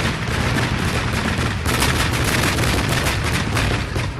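Fireworks going off in rapid succession, many bangs and crackles running together into one continuous barrage over a low rumble. It drops away abruptly at the end.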